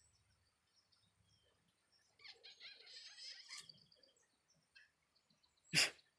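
Pet parrot making soft chattering, kiss-like smacking noises for about a second and a half, a little over two seconds in, with faint high chirps behind. A single sharp knock comes near the end.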